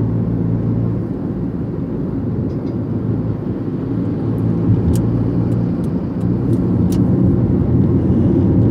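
Car driving along a road, heard from inside: a steady low rumble of engine and tyre noise with a constant engine hum.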